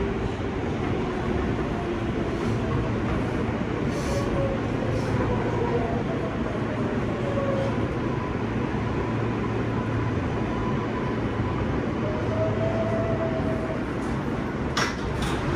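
New York City subway car running along the track: a steady rumble of wheels and running gear, with a faint, slowly wavering whine over it. Two or three sharp clacks come near the end.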